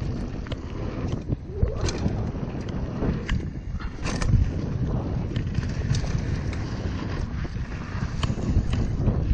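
Wind buffeting the microphone over a constant low rumble, with many short clicks and rattles scattered throughout, as a mountain bike rides over a dirt trail.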